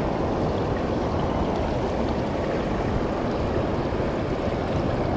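Steady rushing of a river, with water spilling over a low weir.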